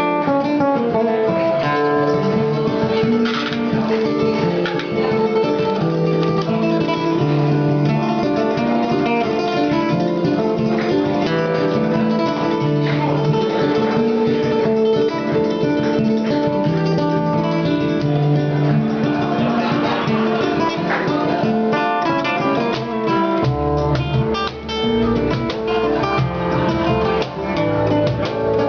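Acoustic guitar music in a flamenco style, strummed and plucked; a deeper bass part comes in near the end.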